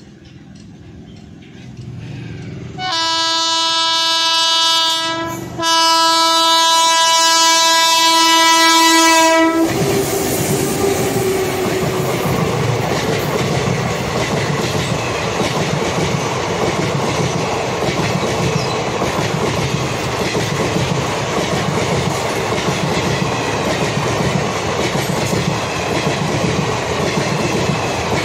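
Indian Railways electric locomotive sounding its horn in two long blasts, with a short break between them, as the train approaches. The horn is the loudest sound. Then the passenger coaches rush past close by with a steady clatter of wheels on the rails.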